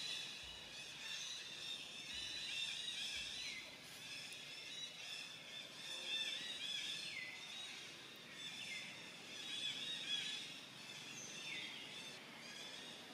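Steady high-pitched outdoor chorus of chirping calls, with a call sliding downward in pitch about every three to four seconds.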